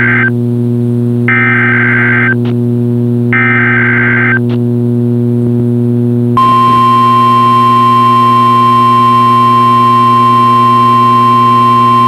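NOAA Weather Radio Required Weekly Test signals over a steady low hum. First come bursts of SAME digital header data, warbling data tones, each about a second long: the tail of one, then two more. About six seconds in, the steady 1050 Hz Warning Alarm Tone begins and holds.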